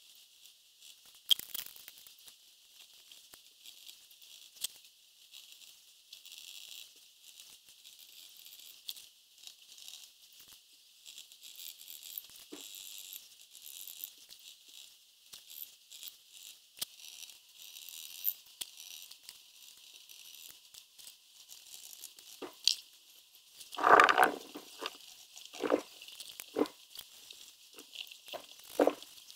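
Chalk and charcoal pencil scratching and hatching on toned paper: a thin, dry scratchy hiss broken by small clicks. From about 24 seconds in come a few louder, fuller scuffs, the hand and pencil rubbing on the paper.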